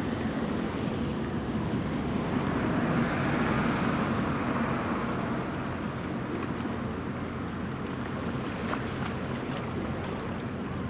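Helicopter destroyer JS Kaga's gas-turbine machinery running as the ship passes, a steady low hum. Over it a rushing noise swells a few seconds in and then fades.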